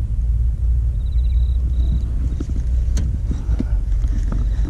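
Steady low outdoor rumble, with a short high pulsing trill about a second in and a few soft clicks and handling noises in the second half.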